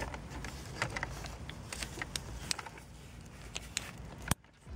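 Hands handling a bundle of car wiring and fitting small plastic wiring-harness connectors together: a scatter of light plastic clicks and wire rustle. A sharper click comes near the end, then the sound stops abruptly.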